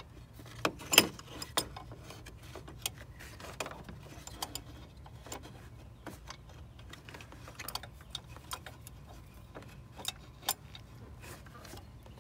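Scattered metallic clicks and knocks of a wrench being worked onto the serpentine belt tensioner under the engine, with one louder knock about a second in, over a low steady hum.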